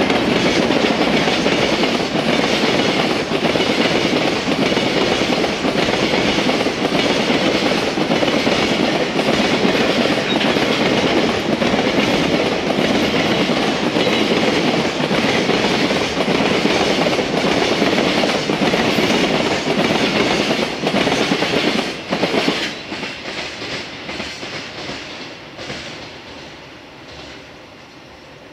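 A container freight train's wagons rolling past on the rails: a loud, steady rumble and rattle with regular wheel clicks. About 22 seconds in the noise drops sharply as the last wagons go by, then fades as the train draws away.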